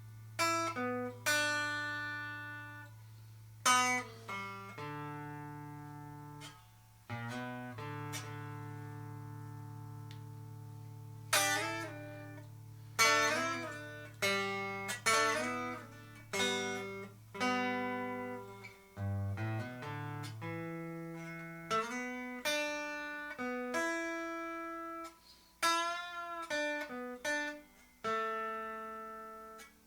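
Squier 40th Anniversary Telecaster on its neck pickup, played dry with no reverb through a Sound City Master Lead 50 amplifier and Schroeder 12PL cabinet. Picked single notes and chords ring out and decay over a held low note for much of the passage.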